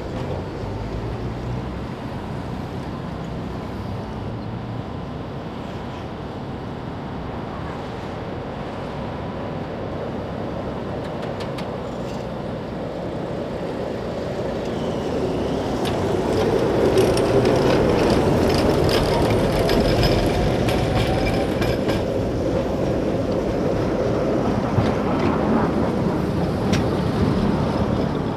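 Tatra T4SU tram pulling away from a stop and running along the track: a rising motor whine as it speeds up, with clicks and rattles from the wheels on the rails. It grows louder about halfway through as it comes close.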